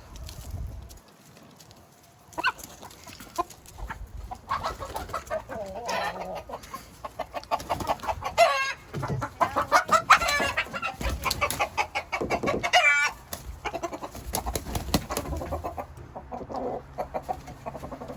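Chickens clucking, building after a few seconds into a dense run of loud, rapid calls through the middle, then easing off.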